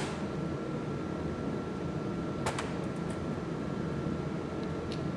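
Steady background hum like a running fan, with a faint constant tone in it, and a single light click about two and a half seconds in.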